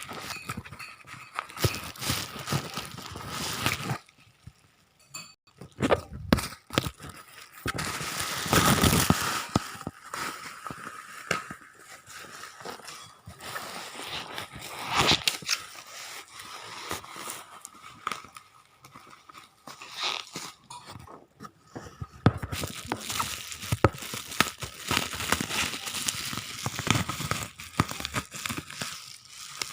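Packaging being handled and opened: irregular crinkling, crunching and tearing, with two brief pauses about four and twenty-one seconds in.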